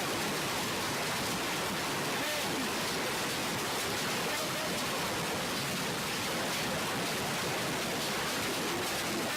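A heavy hailstorm: the steady, dense rush of hail and rain pelting down.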